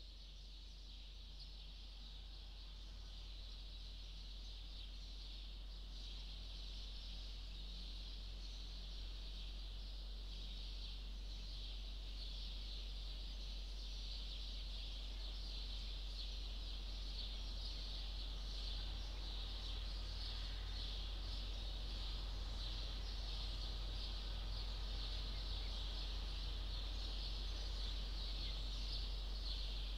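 A high, rasping buzz made of rapid pulses, like a chorus of insects, swelling slowly and steadily louder over a low steady hum.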